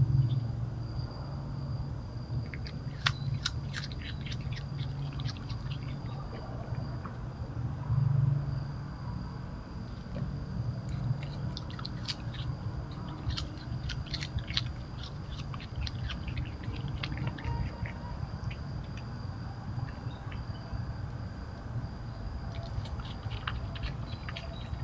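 Gray fox and raccoon chewing food, heard as clusters of sharp crackly clicks a few seconds in, through the middle and near the end, over a steady low hum and a faint steady high tone.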